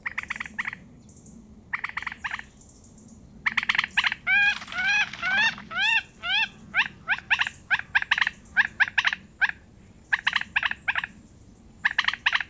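Song thrush singing: short phrases of quick clicking notes and clear rising-and-falling whistles, each phrase repeated several times before the next.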